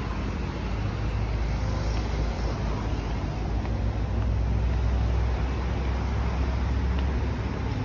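Steady road traffic noise from a busy multi-lane road, a continuous low rumble with a hiss over it.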